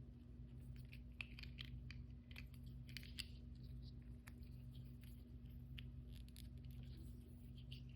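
Toy packaging being opened and handled by hand: faint, scattered crinkles and small clicks, busiest in the first half, over a steady low hum.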